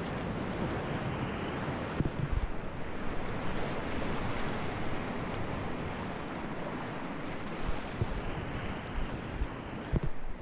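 River water rushing steadily over and around an inflatable kayak, with wind buffeting the microphone. A few dull low thumps come through about two seconds in and again near the end.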